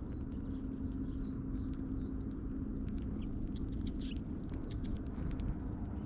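Finches, greenfinches among them, pecking and cracking sunflower seeds on snow: a quick, irregular run of sharp little clicks and taps. Under them is a steady low hum.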